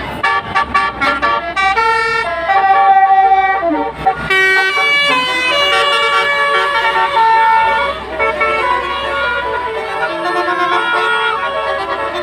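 Telolet horn on a bus: a multi-tone musical air horn playing a tune, several notes sounding together. It opens with quick short blasts, then moves to longer held notes that change pitch in steps.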